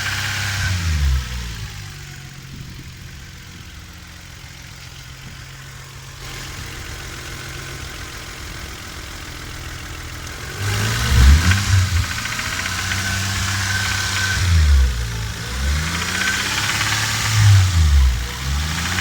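Toyota Supra's 7M-GTE turbocharged inline-six engine running: it settles to a quieter idle after the first second or so, then from about eleven seconds in is revved up and let fall back several times. The owner is unsure whether the engine has a knock.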